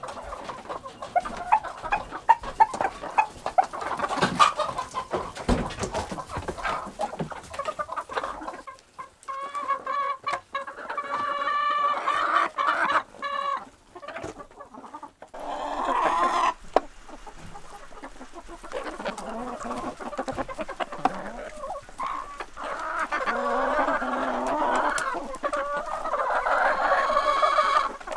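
A flock of backyard chickens clucking and calling as they crowd a wooden trough to peck at salmon carcasses. Many sharp taps come in the first several seconds, then longer drawn-out calls.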